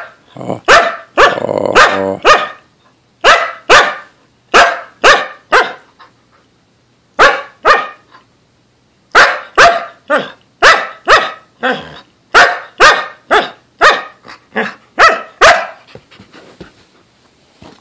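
Samoyed barking over and over, sharp barks about two a second with a few short pauses and one longer drawn-out call about a second in. This is how she signals that she needs to be let outside to relieve herself. The barking stops near the end.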